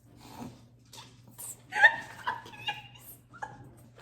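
A person stifling laughter: a few short breathy chuckles and snorts in the middle, over a faint steady electrical hum.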